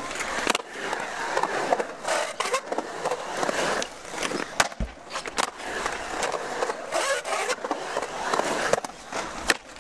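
Skateboard wheels rolling and carving on a smooth concrete bowl, with several sharp clacks of the trucks and board striking the metal coping and landing.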